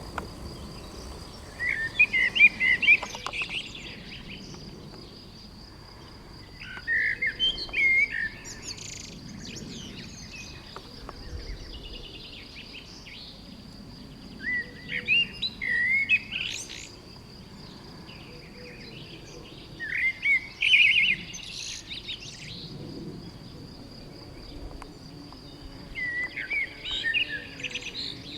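A songbird singing short, quick warbled phrases, five times at intervals of about six seconds, over a steady thin high-pitched tone in the background.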